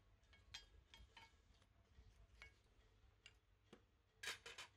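Near silence broken by faint, scattered ticks and clicks, with a short cluster of slightly louder clicks about four seconds in.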